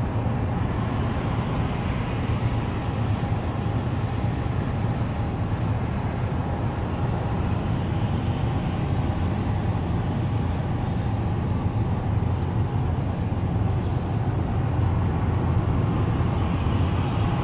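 Road and tyre noise heard inside a car's cabin at highway speed, a steady low rumble.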